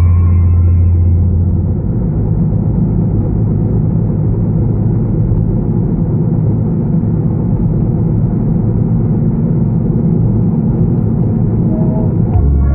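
Steady low rumble of road and engine noise inside a moving car. Music fades out in the first second or two and comes back near the end.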